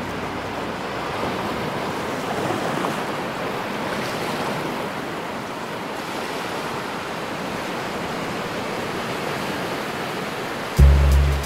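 Steady wash of ocean surf breaking on a sandy beach, mixed with some wind. Background music comes back in near the end.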